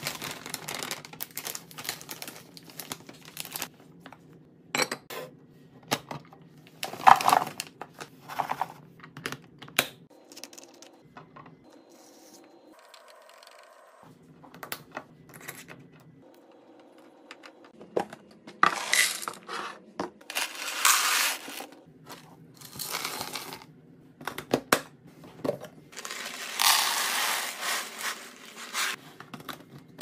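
Refill-and-restock handling sounds: laundry detergent pods dropping into a glass jar with the plastic pouch crinkling, and the metal lid of a small glass spice jar being handled. Many sharp clicks and clinks, with longer stretches of rustling about a third of the way in and through the second half.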